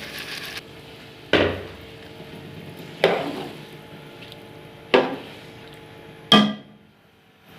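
Four sharp metal clanks of a utensil against a cooking pot, about one and a half to two seconds apart, each ringing briefly; the last one rings the clearest.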